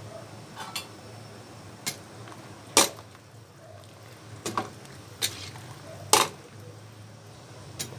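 A ladle stirring a pot of boiling soup, clinking sharply against the side of the pot about seven times, two of the knocks louder than the rest.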